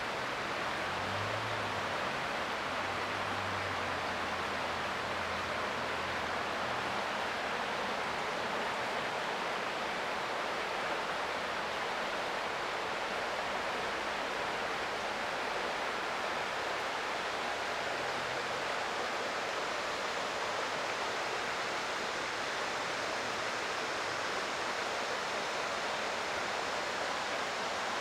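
Creek water flowing, a steady even rush with no change in level. A faint low drone sits under it for the first few seconds.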